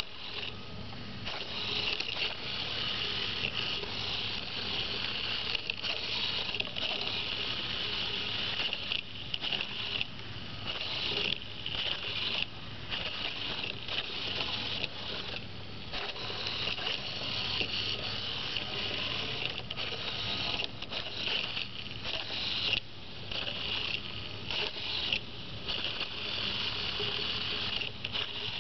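A Pololu 3pi line-following robot's small geared drive motors whining high, starting and stopping with many short pauses as the robot halts to centre itself on the line.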